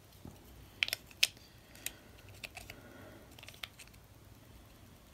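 Scattered small clicks and taps of a 13 Fishing baitcasting reel's parts being handled and fitted back together, the loudest two about a second in.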